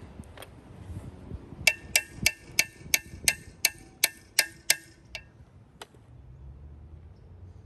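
A quick run of about a dozen sharp clinks, about three a second, each with a short bright ring, followed by two single clicks.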